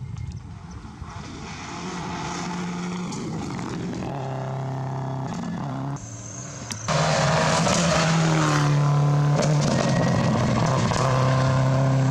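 Rally car engine running hard at high revs, its pitch holding then stepping up and down as the driver changes gear. It becomes much louder about seven seconds in as a car comes close.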